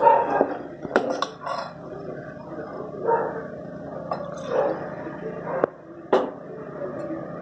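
Steel spoon stirring a thick minced-meat masala mixture in an aluminium pot, with a few sharp clinks of the spoon against the pot.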